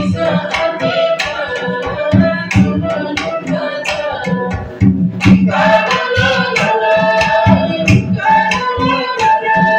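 Folk dance music with fast hand-drum strokes, a held melody line and singing.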